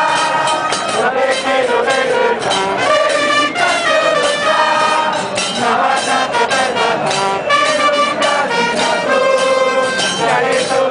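Supporters' trumpets playing a terrace chant melody in the stands, one held note after another.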